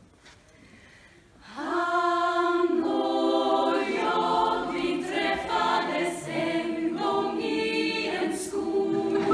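Women's choir singing a cappella in Swedish, beginning about a second and a half in after a quiet moment.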